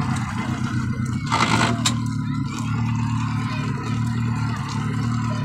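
Mercury 115 hp outboard motor idling steadily, with a brief hiss about a second and a half in.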